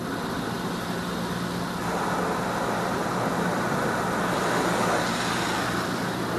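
High-pressure water and foam spray from a PDQ LaserWash touchless car wash hitting the car's glass and roof, heard from inside the cabin. The spray swells about two seconds in as it passes over and eases near the end, over a steady low hum.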